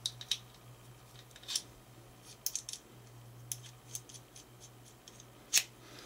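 Light, irregular metallic clicks and scrapes as a Schlage small-format interchangeable lock core is handled and seated into a metal cylinder housing, with a louder click near the end.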